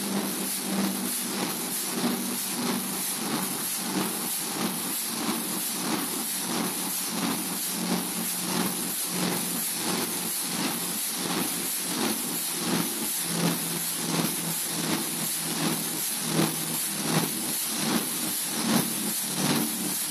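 Burmeister & Wain 1933 diesel engine running, a steady rhythmic beat over a constant hiss and a low hum.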